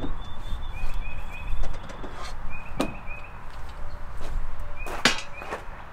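A few sharp knocks and clatters of gear being lifted out of a pickup truck bed, the largest near the start, about three seconds in and about five seconds in. Short, repeated bird chirps and a low rumble run underneath.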